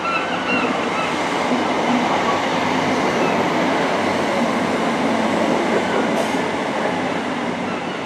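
A train running on the rails: a steady rumble and rush of wheel and rail noise that swells over the first couple of seconds and eases off near the end.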